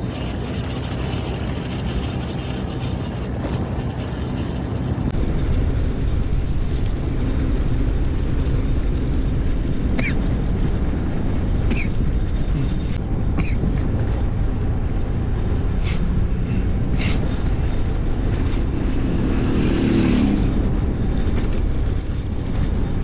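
Steady low rumble of a vehicle on the move, with wind on the microphone. A few short high squeaks come through in the middle.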